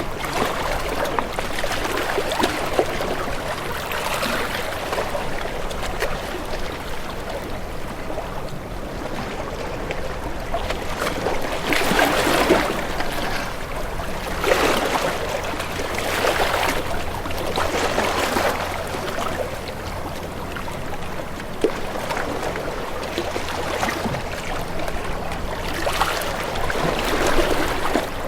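Water washing and splashing in repeated surges every couple of seconds, over a faint low steady hum.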